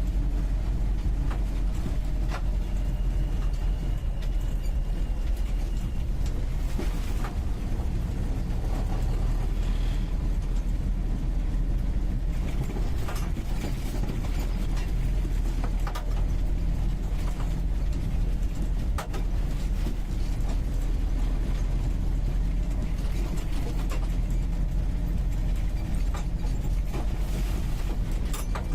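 UAZ 469B's four-cylinder petrol engine running steadily while the vehicle is driven, heard from inside the cabin at the passenger seat. Frequent short clicks and rattles come through over the engine.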